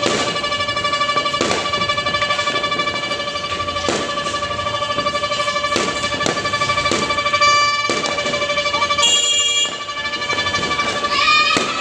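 New Year fireworks going off, with sharp bangs and pops every second or so over a steady, warbling horn-like tone. Near the end the tone falters and a short rising glide sounds.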